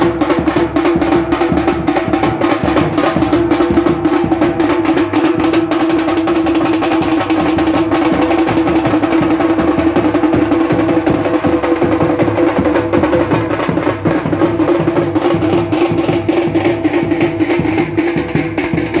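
Tasha and dhol drums beaten fast with sticks by a street drum group: a dense, continuous, loud drumming rhythm with a steady ringing tone under the strokes.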